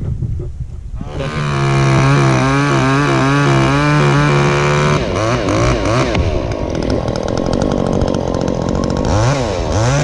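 Stihl chainsaw running at high revs from about a second in, then revved up and down over and over.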